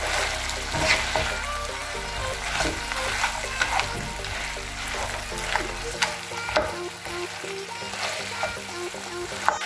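Chips, chicken pieces and tomato sauce sizzling in a non-stick frying pan as a wooden spatula stirs and scrapes through them, with a scrape or knock about every second.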